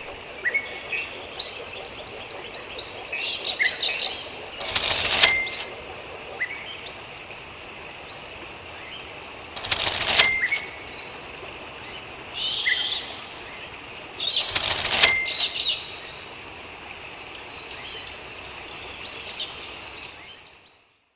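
Animated-soundtrack bird chirps over a steady outdoor background, with three loud whooshes about five seconds apart; the sound fades out near the end.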